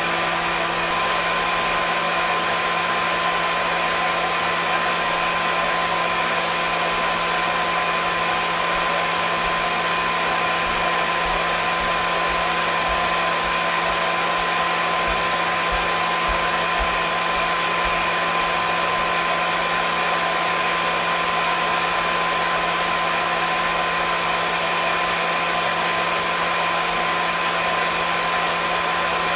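Hair dryer running steadily: an even blowing hiss of its fan with a constant motor whine on top, no change in speed.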